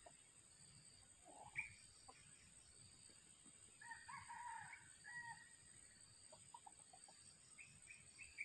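Faint crow of a red junglefowl rooster, a short broken crow about four seconds in. A brief call comes just before it, and a quick run of short clucking notes near the end.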